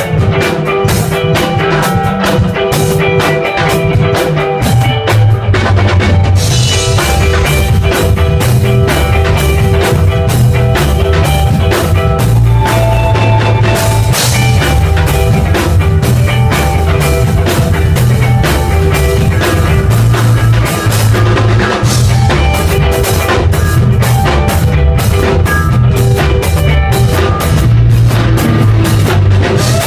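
Electric guitar and drum kit playing rock music together, loud, with a steady drum beat under sustained guitar notes.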